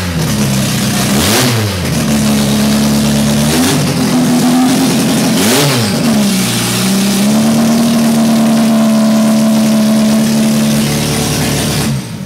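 Datsun 510's Nissan L-series inline four-cylinder engine, with a hotter camshaft, new carburetor and ported head, running and blipped by hand at the throttle: four quick revs, then held steady at a raised speed for a few seconds before it dies away near the end.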